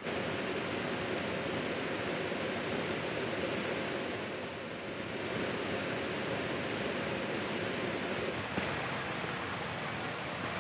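Steady rush of a fast mountain stream tumbling over rocks, swollen by heavy rain upstream.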